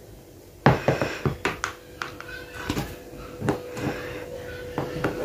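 Toy lizard knocking and tapping on a tile floor as it is jiggled at a cat: a quick run of sharp taps about a second in, then scattered knocks, over a faint steady hum.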